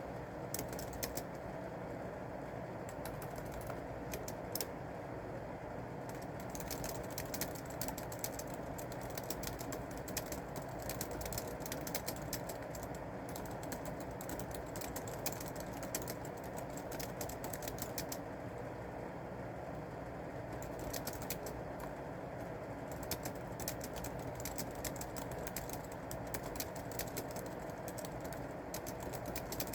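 Typing on a computer keyboard: irregular runs of key clicks broken by short pauses, over a steady low background hum.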